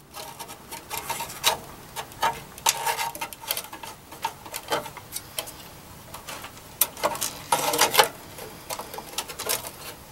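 A circuit board and its wiring being worked into a metal amplifier chassis by hand: irregular clicks, taps and rattles as the board and wires knock and scrape against the chassis.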